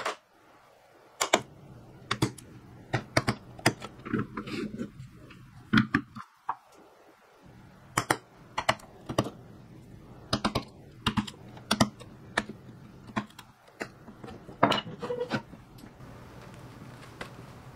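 Wood chisel being struck as it chops out a half-lap slot in a red oak board: sharp, irregular knocks, about one or two a second, some in quick pairs. The knocks stop near the end, leaving only a faint steady background hum.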